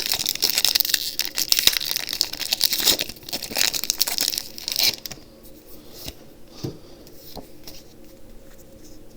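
Foil trading-card booster pack wrapper being torn open and crinkled, a dense crackling for about the first five seconds; after that come quieter scattered clicks and rustles.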